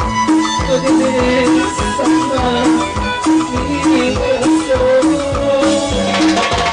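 Live band playing a Latin dance tune: a steady drum beat, a repeating bass line and electric guitar, with a shaker-like rattle on top.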